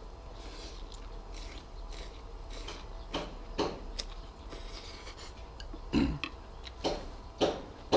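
A person slurping noodles from a bowl of soup and chewing them, with soft sucking swishes and several sharp clicks in the second half, the loudest about six seconds in.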